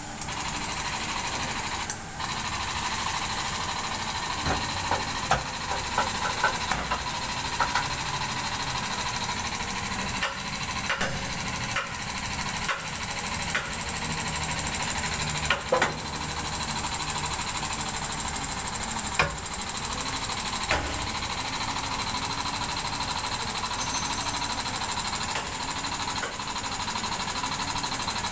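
A machine running steadily with a fast rattle and a steady whine, broken by scattered sharp metallic knocks.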